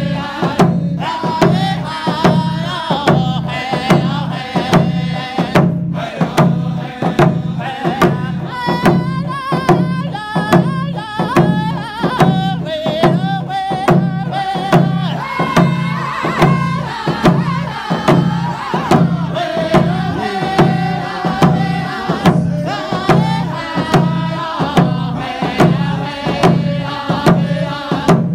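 Men singing a round dance song together in unison, each beating a hand-held hide frame drum in a steady, even beat.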